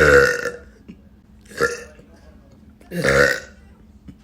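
A woman burping three times: a loud burp of about half a second at the start, a short one about a second and a half in, and another longer one about three seconds in.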